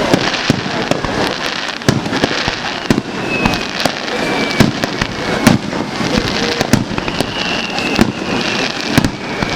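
Aerial fireworks bursting in quick succession: many sharp bangs over continuous crackling, echoing back off the surrounding mountains. A faint whistle or two runs through the crackle.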